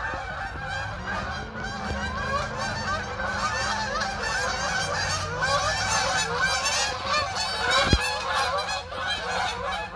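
A large flock of Canada geese flying overhead, many birds honking at once in a dense, unbroken chorus. There is one brief knock about eight seconds in.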